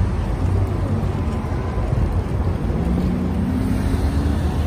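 Steady low rumble of heavy vehicles beneath a steel elevated railway, with a faint engine or motor tone that rises slightly about three seconds in.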